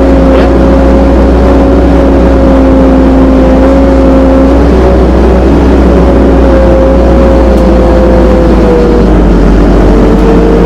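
FAT Truck amphibious vehicle's engine and drivetrain running under load, heard from inside the cab as a steady drone with a high whine. The lower part of the whine drops out about halfway through, and the whine's pitch dips briefly near the end.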